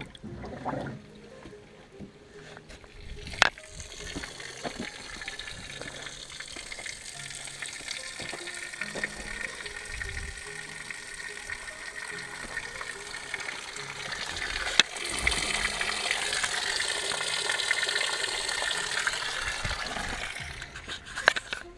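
Water gushing out of a boat's livewell drain after the plug is pulled, a steady rush that grows louder about two-thirds of the way through and stops shortly before the end. A couple of sharp knocks stand out, one a few seconds in and one partway through.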